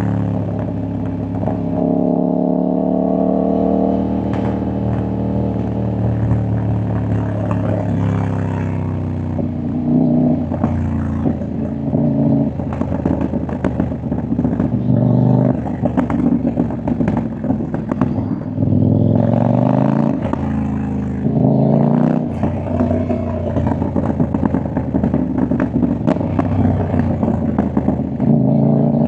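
CFMOTO 800NK motorcycle's parallel-twin engine and exhaust under way: the engine note holds and slowly eases off, then a long run of rapid pops and crackles on the overrun, with the revs rising briefly twice later on.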